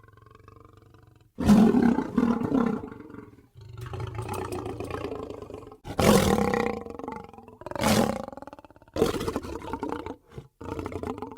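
Asiatic lion roaring: a series of long, loud roars beginning about a second and a half in, followed near the end by a run of shorter grunting calls.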